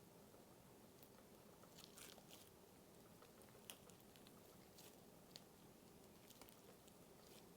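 Cereal slime being slowly pulled and folded by hand, very quiet, with a few faint, scattered crackles and clicks.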